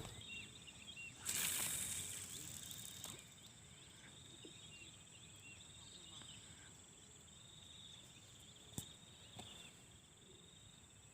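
Faint, steady insect chirring, with a brief burst of rustling noise about a second in and a single sharp click near the end.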